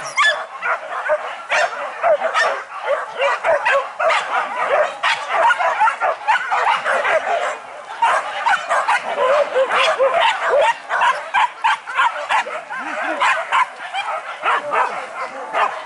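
A pack of boar-hunting dogs barking and yelping without a break, many short calls overlapping.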